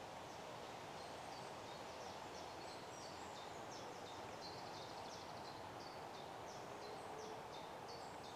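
Woodland ambience: a steady rushing background with small birds chirping, a run of short high notes repeating a few times a second.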